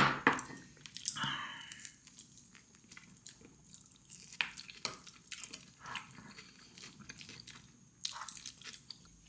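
A person chewing food, with scattered small clicks throughout.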